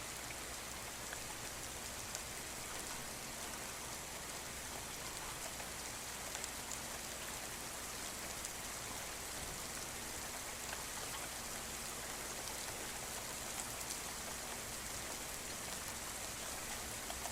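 Steady rain falling in woods: an even hiss with faint scattered drop ticks.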